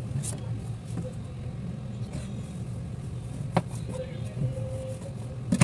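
A knife cutting limes on a cutting board, with two sharp knocks of the blade against the board, one about three and a half seconds in and one at the very end, over a steady low hum of background noise.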